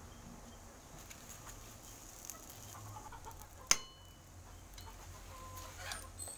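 A metal ladle clinks once against an aluminium cooking pot about halfway through, with a short metallic ring. Faint clucking of chickens comes and goes behind it.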